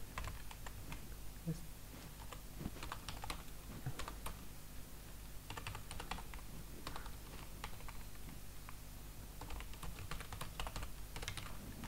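Typing on a computer keyboard: faint key clicks in short runs with brief pauses between them.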